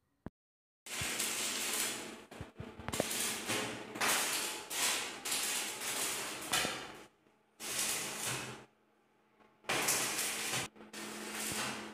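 Spark-throwing metalwork on a steel staircase: loud hissing bursts of one to two seconds with short breaks, over a faint steady hum, starting about a second in.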